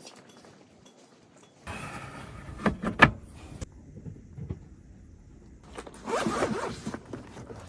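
Camping gear being handled: a rasping, zipper-like sliding sound with two sharp clicks, the second the loudest, and a second scraping rasp a few seconds later.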